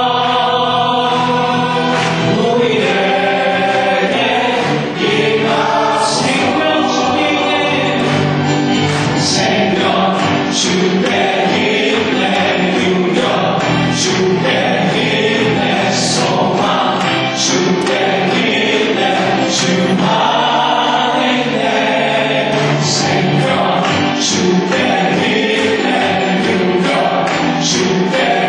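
Church praise team singing a gospel song together in harmony into microphones, without a break.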